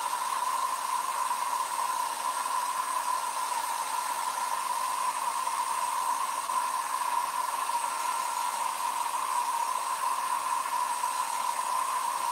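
Hand-held blow dryer running steadily, a rush of air with a steady whine, drying freshly applied chalk paste on a silk-screen transfer.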